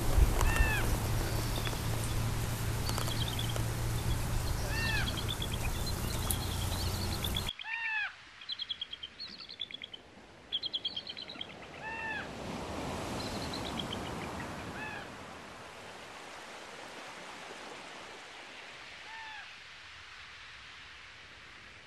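Birds calling: short arching calls repeated every second or two, mixed with quick runs of high chirps. A steady background hiss drops away suddenly about seven and a half seconds in, and the calls grow sparser and fainter towards the end.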